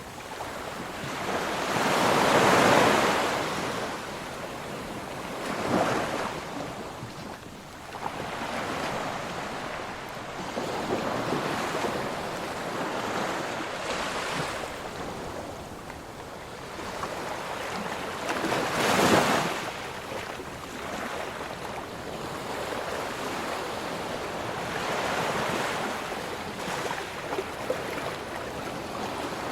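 Ocean waves breaking and washing in, a steady rush of surf that swells with each wave. The two loudest breakers come a couple of seconds in and about two-thirds of the way through, with smaller ones in between.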